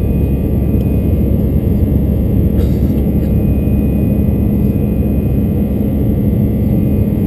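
Steady cabin roar of an Airbus A321's CFM56 turbofan engines during the climb after takeoff, heard from a seat over the wing, with a steady low hum running through it. A brief faint click about two and a half seconds in.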